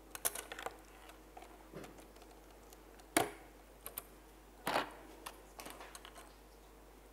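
Plastic Lego Technic parts clicking and knocking as they are handled and fitted together: scattered, irregular clicks, the sharpest about three seconds in and another just before five seconds.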